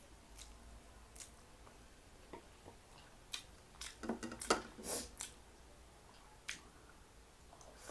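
Close-miked eating sounds: scattered small mouth clicks, then a cluster of louder chewing and wet mouth noises about halfway through, and one more sharp click a little later.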